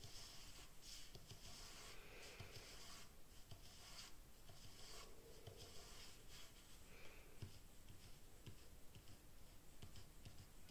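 Faint scratching of a fine-tipped pen on paper as lines are drawn in quick, irregular strokes.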